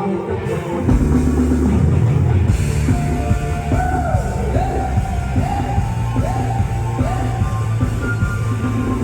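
Loud live band music with a heavy beat and a voice singing in short phrases that rise and fall, repeated several times in the middle.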